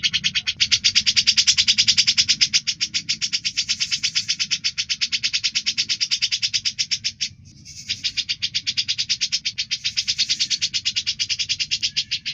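Cucak jenggot (grey-cheeked bulbul) calling in a long, rapid chatter of harsh notes, about ten a second. It breaks off briefly about seven seconds in, then starts again.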